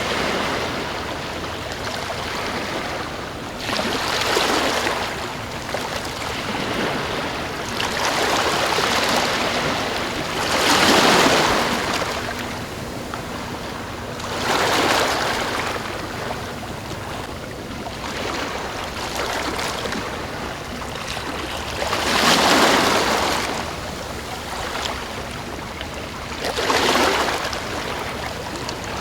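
Calm waves breaking gently and washing up a sandy beach, the rush of surf swelling and fading every three to four seconds.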